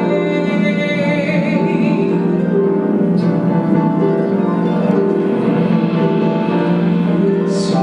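Piano-led musical-theatre accompaniment playing a short instrumental interlude of held chords between sung phrases of a duet.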